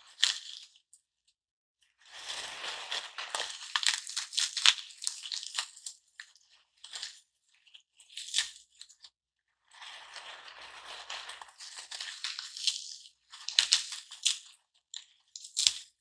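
Garden foam block being cut into pieces: a staticky, crackly rasp that comes in two long stretches of a few seconds each, with shorter crunches and clicks in between.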